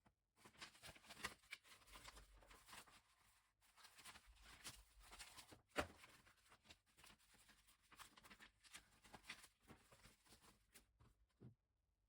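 Near silence: faint scattered rustles and small clicks, with one sharper click about six seconds in.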